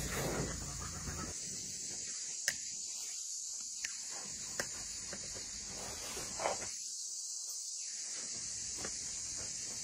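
Hands mixing flour and liquid into dough in a large metal basin: soft irregular rustling, with a few sharp clicks, over a steady high hiss.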